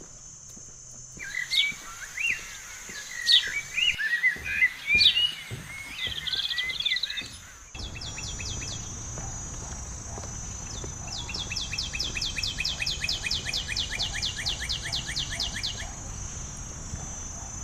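Birds chirping in forest over a steady high drone. After an abrupt change about eight seconds in, a rapid pulsing call repeats about five times a second over a steady high tone.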